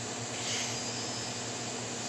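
Steady room noise between sung lines: an even hiss with a faint low hum, and no voice.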